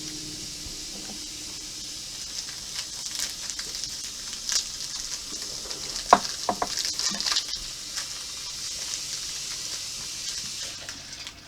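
A plastic cookie package being handled and opened, with scattered crackles and clicks over a steady hiss.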